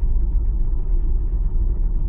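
Car driving: a steady low rumble of engine and road noise.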